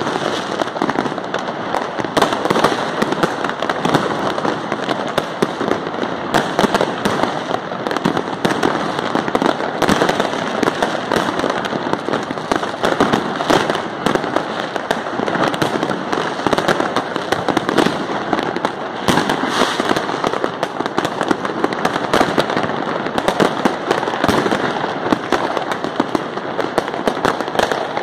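Many fireworks and firecrackers going off at once: a dense, unbroken crackle of rapid pops and bangs with no pause.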